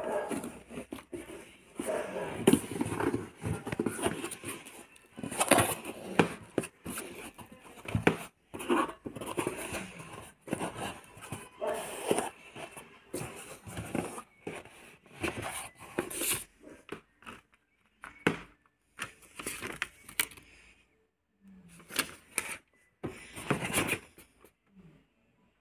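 Cardboard shipping box being opened by hand: packing tape and cardboard torn, scraped and rustled in irregular bursts, thinning out to occasional handling noises in the last third.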